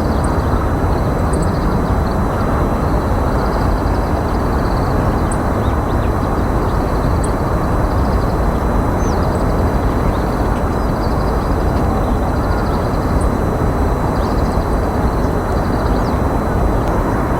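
Steady low rushing outdoor background noise at an even level, with faint high trills recurring about once a second over it.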